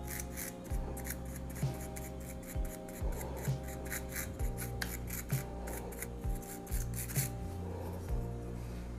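Brush bristles scrubbing coffee grounds out of a Breville Barista Express grinder's burr chamber in quick repeated strokes, about two or three a second, over soft background music.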